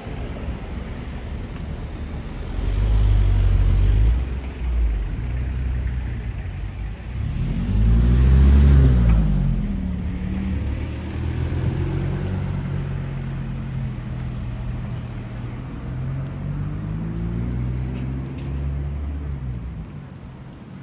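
Motor vehicle engines passing close by on a street, the loudest about eight seconds in with a rise and fall in pitch, then more engine sound through the second half. Low wind buffeting on the microphone underneath.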